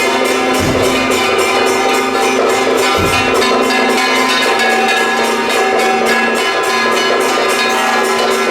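Temple procession percussion music: fast, steady clanging of gongs and cymbals over held tones, with a couple of deep drum beats.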